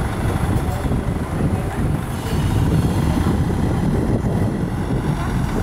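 Diesel dump truck running with its tipper bed raised, rock and soil sliding out of the bed and tumbling onto the pile in a steady low noise that grows a little louder about two seconds in.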